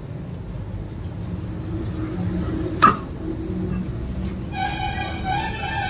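A car's front wheel being taken off by hand in a workshop, with one sharp metallic knock about three seconds in as the wheel comes free of the hub, over a steady low rumble. A steady whine starts near the end.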